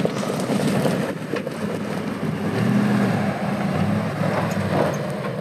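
Pickup truck's engine pulling under load as it climbs a steep dirt hill, swelling louder about two and a half to three seconds in.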